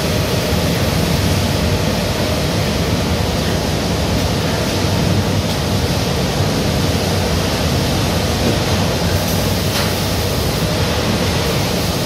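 Steady, loud machinery and running-water noise on a pig slaughterhouse processing line, an even roar with no break or rhythm.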